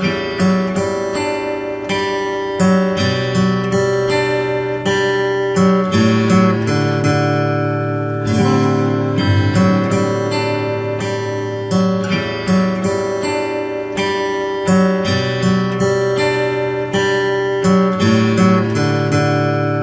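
A single acoustic guitar plays melody and bass lines together, a continuous run of plucked notes, through the instrumental interlude between the chorus and the next verse.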